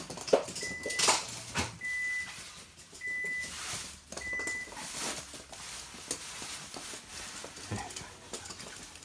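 A toy poodle running on a wood-look hard floor, its paws pattering and its claws clicking in scattered taps and knocks. A short high beep sounds four times, about a second apart, in the first half.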